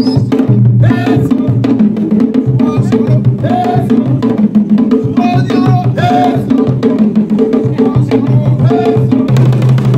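Live hand-drum music with a steady, driving rhythm, and short vocal calls over it.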